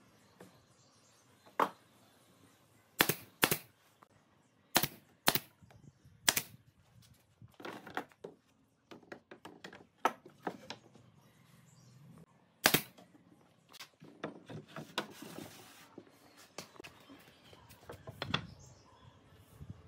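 Pneumatic nail gun firing nails into pine frame boards: a dozen or so sharp single shots at uneven intervals, several in quick pairs, the loudest a little past the middle. A short hiss follows a couple of seconds after it.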